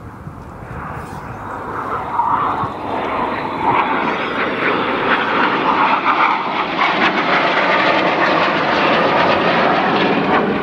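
Several BAE Hawk T1 jet trainers with single Adour turbofan engines flying past. The jet noise builds over the first few seconds, then holds loud and steady.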